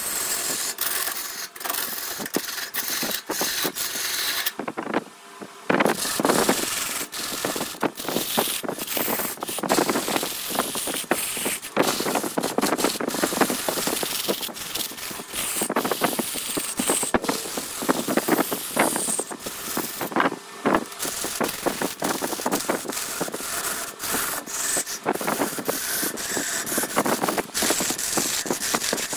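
Wood being turned on a lathe: a hand-held tool scraping against the spinning redwood, a dense rasping noise full of short catches, which drops out briefly twice.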